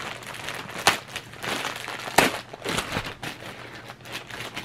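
Packaging crinkling and rustling as a new laptop is unwrapped and handled, with two sharp clicks about one and two seconds in.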